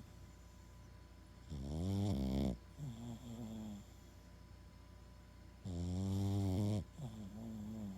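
Boston terrier snoring: two loud, drawn-out snores about four seconds apart, each about a second long and followed by a softer, shorter snore.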